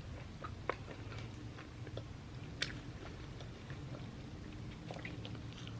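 A person chewing food close to the microphone: soft wet mouth clicks and smacks, with a sharper click about two and a half seconds in.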